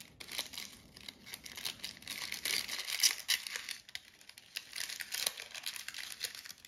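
A crinkly packaging bag being handled and opened, with irregular crinkling and crackling.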